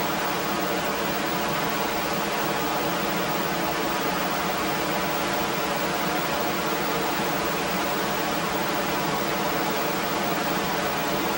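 Whitewater rapids of the Sainte-Anne River rushing over rocks above a waterfall: a steady, unbroken rush of water.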